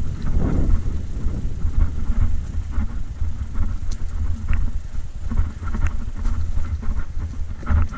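Mountain bike rolling downhill over a rough dirt track, heard from a camera mounted on the bike: a steady low rumble with scattered sharp rattles and clicks from the bike.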